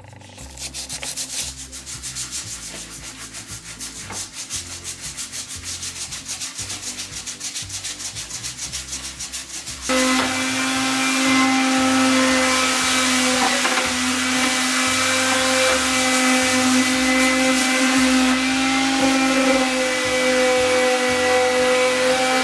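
Hand sanding of wood putty, with regular rubbing strokes about three a second. About ten seconds in, an electric grinder starts suddenly and then runs steadily and loudly.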